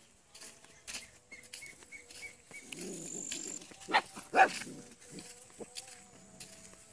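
A dog barks twice in quick succession, about four seconds in.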